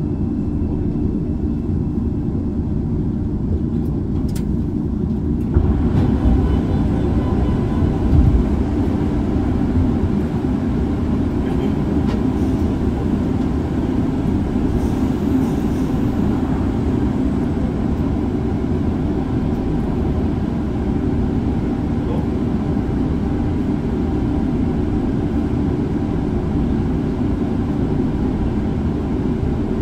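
Shinbundang Line subway train's steady low rumble and hum in the tunnel. It turns louder and brighter about five seconds in, with a brief low thump a few seconds later.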